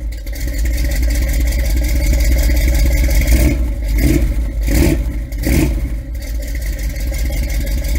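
Car engine running steadily, with four brief surges near the middle.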